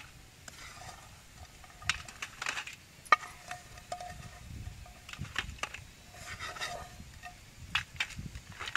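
A steel slotted ladle scraping and clinking on a steel plate as sugar-coated buns are set down, in scattered light clicks with one sharper clink about three seconds in.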